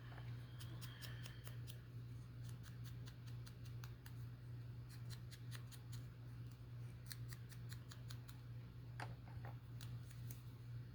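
Scissors snipping paper in several short runs of quick cuts, over a steady low hum.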